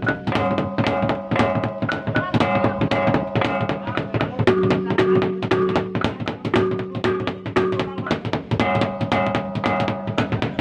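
Traditional East Flores drum and gong ensemble (gendang and gong) playing a fast, steady beat. Several gongs of different pitches ring over rapid drum strokes.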